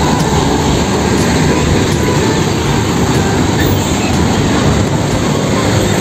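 Road traffic running past: a steady, loud rumble of engines and tyres.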